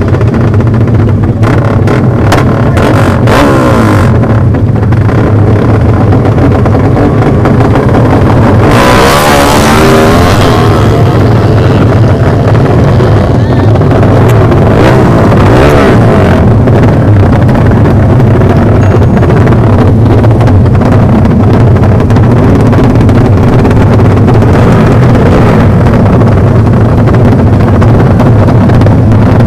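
Motorcycle engines running very loud, with a bike revving hard and accelerating past about nine seconds in, its pitch sweeping up and down, and another rev a few seconds later.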